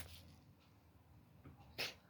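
Near silence, broken near the end by one short breathy hiss.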